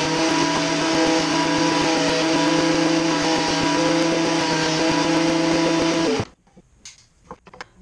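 Benchtop thickness planer running, its motor giving a steady whine over the cutter noise as a board feeds through. About six seconds in the sound stops abruptly, leaving near quiet with a few faint clicks.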